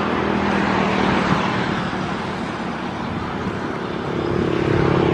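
A motor engine running steadily over a dense rushing noise, with its hum rising in pitch and growing louder near the end.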